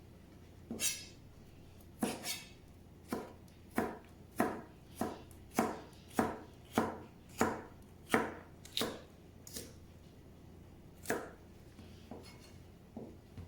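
Knife chopping on a cutting board: a steady run of sharp cuts, roughly one every half second to second, that slows to a few scattered cuts near the end.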